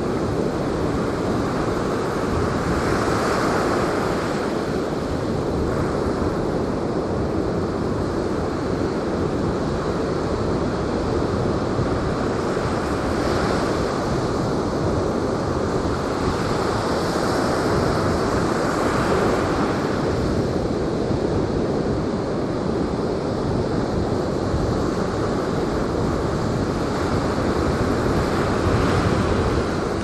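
Storm surf breaking and washing up a sandy beach in repeated surges, with strong wind buffeting the microphone.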